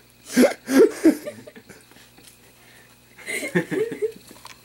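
People laughing in short bursts: three loud ones about half a second to a second in, then a quieter run of laughs near the end.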